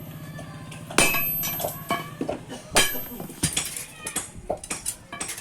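Hammer blows on steel: two loud ringing strikes about a second and three seconds in, followed by a quick run of lighter metallic taps and clinks.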